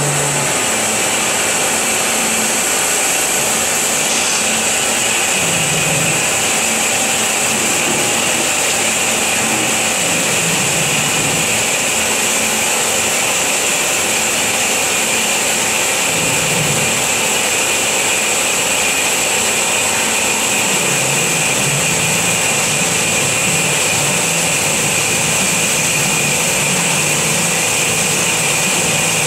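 FMB Omega semi-automatic band saw cutting through solid metal bar: a steady, unbroken cutting noise with a high whine from the blade.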